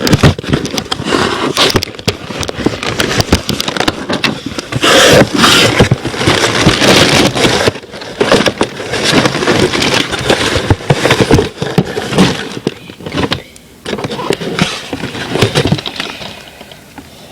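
Box and packaging being torn open and handled: dense crackling and rustling with many sharp clicks, dying down near the end.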